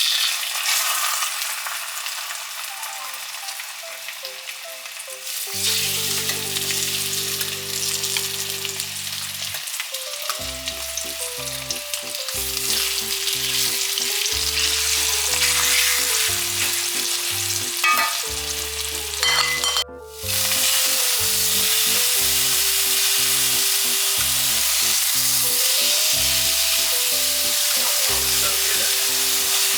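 Food sizzling as it fries in a hot pan, over soft background music. The sizzling breaks off for a moment about twenty seconds in, then goes on louder and steady.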